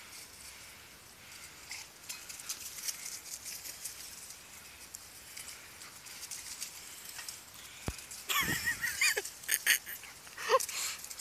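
Dogs playing rough on a leaf-covered lawn: crackly rustling and scuffling of paws through dry leaves and grass, with a few louder, short pitched cries of bending pitch in the last few seconds.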